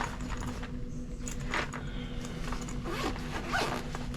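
Light handling noises on a desk: scattered small clicks, rattles and rustles as objects are picked up and moved, over a steady low hum.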